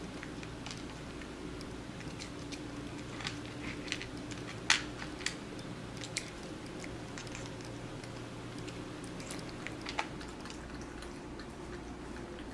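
A cat crunching and chewing treats taken from a hand: scattered small crisp clicks, the loudest about five seconds in, over a steady low hum.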